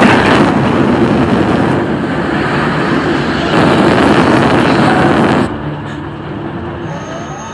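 Loud, steady roar of a jet aircraft's engine as the hypersonic test plane's scramjet takes over. It drops away suddenly about five and a half seconds in to a quieter rumble.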